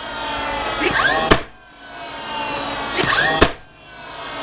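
Cordless brad nailer fired twice, about two seconds apart. Each time its motor whines up in pitch and then fires with a sharp snap, and the whine winds down between shots.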